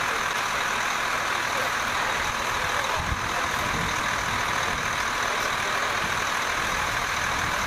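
A motor vehicle engine running steadily, an even unbroken noise with no pauses.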